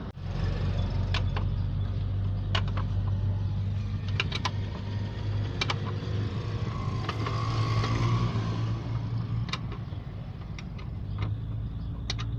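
An engine running steadily with a low hum, with a dozen or so sharp metallic clicks and taps scattered over it.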